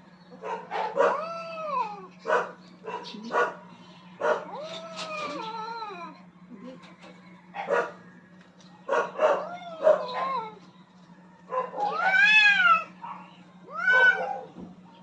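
Two cats fighting, trading drawn-out yowls that rise and fall in pitch, with short sharp cries in between; the longest and highest yowl comes about twelve seconds in. A steady low hum runs underneath.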